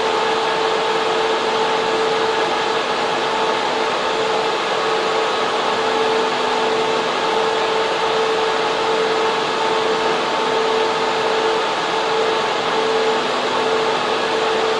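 Data center server room air cooling and server fans running: a loud, steady rush of air with a constant whine from two steady tones.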